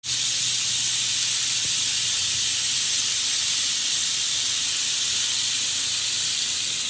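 Rain stick being tipped: a steady high hiss of pebbles trickling down inside, cutting in and out abruptly.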